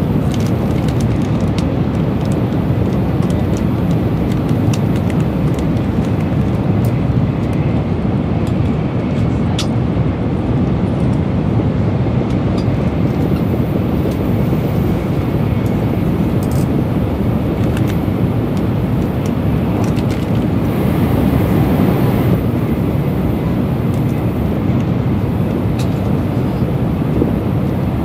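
Steady low rumble of an N700-series Shinkansen bullet train running, heard from inside the passenger cabin, with a few faint ticks and a little more hiss about three-quarters of the way through.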